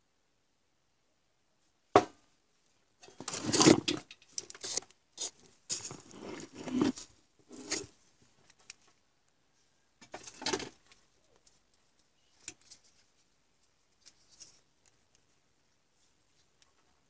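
Metal handling noise from a helping-hands soldering stand: a sharp click about two seconds in, then several seconds of rattling and scraping as its alligator clips and jointed arms are worked, another short rattle later and a few light clicks.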